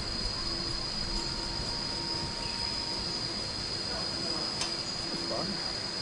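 Insects droning: a steady high-pitched buzz, with a single sharp click a little past the middle.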